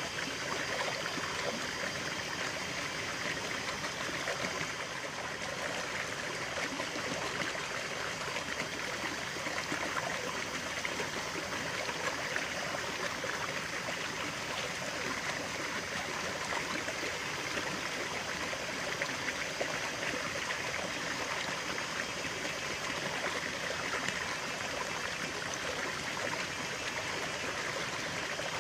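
Stream of running water flowing steadily, a continuous rushing and trickling.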